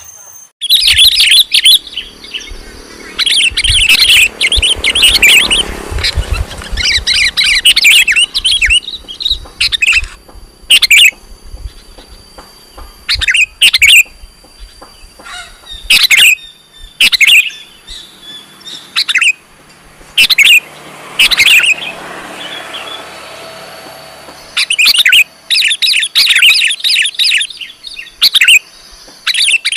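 Sooty-headed bulbul (kutilang) calling: repeated bursts of quick, bright chirping notes with short pauses between, the kind of call sought as a lure call by bird trappers.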